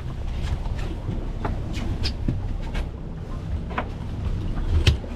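Steady low rumble, with a few sharp knocks and clicks against the boat deck; the loudest knock comes near the end.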